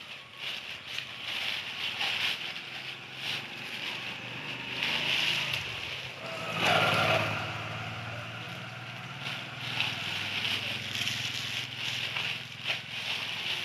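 Plastic bag rustling and crinkling as wet cement mix is scooped out of it by hand, with soft slushy scraping of the mix. A louder swell about seven seconds in is followed by a low hum.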